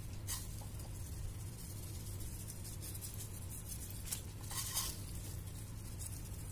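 Dry fine vermicelli strands rustling and crackling as they are picked up by hand and scattered, louder about a third of a second in and again around four to five seconds in, over a steady low hum.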